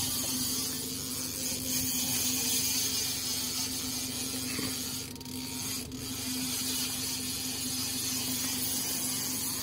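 Boat motor running steadily at trolling speed, a constant hum over a steady hiss.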